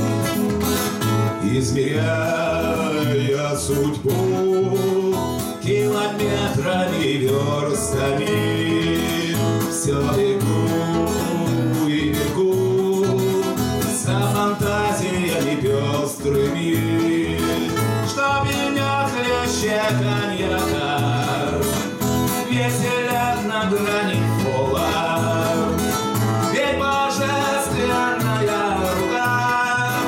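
Two acoustic guitars strummed in a steady rhythm while men's voices sing a song live.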